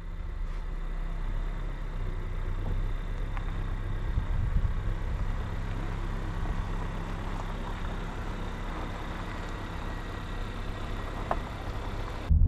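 A car running, with a steady low engine hum and road noise. It jumps abruptly louder right at the end.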